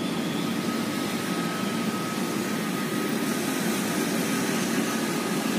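Steady drone of city traffic, with a faint high-pitched whine running through it.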